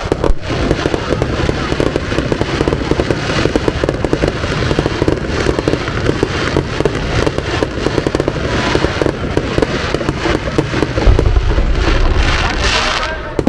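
Aerial fireworks going off in a dense, continuous barrage of rapid bangs and crackling, with heavier low booms about eleven seconds in.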